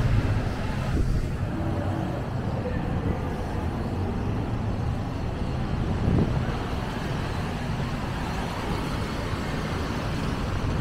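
City street traffic: cars, taxis and a double-decker bus driving past on a wet road, a steady rumble with a louder pass about six seconds in.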